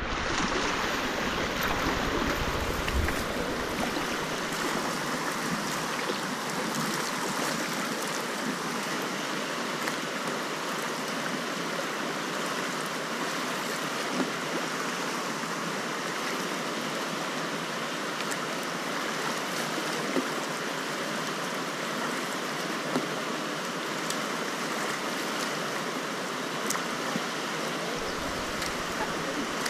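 Whitewater of the River Tryweryn rushing over its rocky bed in a steady wash of noise, heard close up from a kayak in the rapids.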